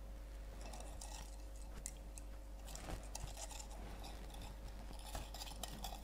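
Sugar and flour in water being stirred, with faint, scattered gritty crunching of undissolved sugar crystals scraping the vessel: the sign that the sugar has not yet fully dissolved.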